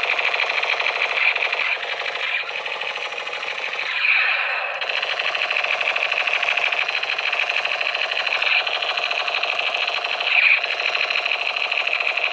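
A small toy's electric motor driving plastic gears, a fast steady rattling buzz that breaks off briefly a few times.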